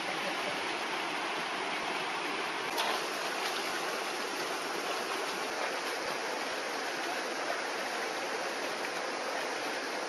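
Shallow stream running steadily over rocks and stones.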